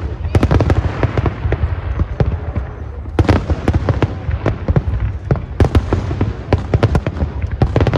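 Fireworks going off in rapid, irregular succession, many sharp bangs and crackles over a continuous low rumble.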